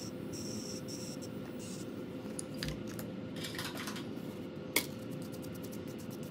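Avalico electric nail drill running with a steady hum, with a few light clicks and taps over it, one sharper click about three-quarters of the way through.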